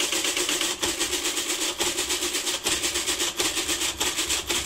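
Rheinmetall SAR IIc electric calculator running through a long multiplication: a rapid, continuous clatter of clicks over a steady motor hum as the mechanism cycles and the carriage steps along.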